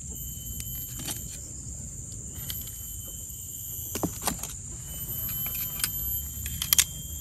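Stainless-steel kitchen tongs clicking and tapping as whole fried snakehead fish are picked up and set down on a banana leaf on a serving tray: a few sharp clicks, a pair about four seconds in and a close pair near the end. A steady high-pitched whine runs underneath.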